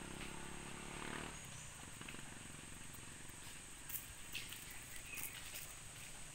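Faint outdoor ambience. A low steady hum stops about a second in, a thin high steady tone runs on, and a few light clicks come in the second half.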